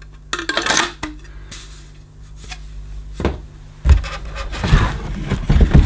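Plastic vacuum-cleaner parts being handled: hollow wand tubes scraping and knocking, then bumps and knocks as the handle is worked loose from the cardboard box and its packing. A brief scraping rustle comes near the start, a sharp knock about three seconds in, and a run of bumps near the end.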